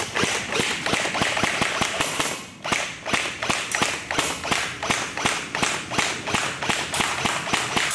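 Electric airsoft rifle (AUG type) firing a rapid stream of shots, with a short pause about two and a half seconds in. BBs strike the foam pool noodle and the granite table top.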